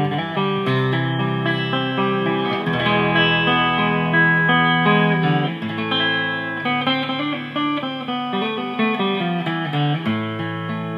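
Archtop guitar being played: held low notes that change every few seconds under a moving line of higher notes and chords.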